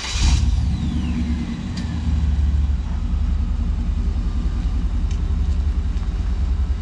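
1994 Chevrolet K1500 pickup with a Thrush glass-pack side-dump exhaust, running at low revs and moving slowly, with a steady deep exhaust rumble.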